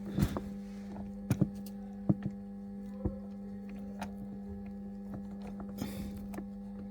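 A steady electrical hum, with a few scattered small clicks and taps of plastic being handled as a blade fuse is worked into a car's fuse box.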